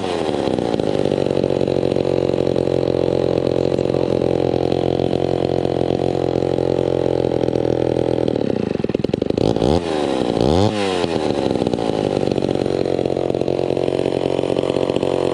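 Vintage Homelite XL12 two-stroke chainsaw with a custom exhaust idling steadily. Its pitch is coming down from a rev at the start, and it gets a couple of quick throttle blips about nine to eleven seconds in.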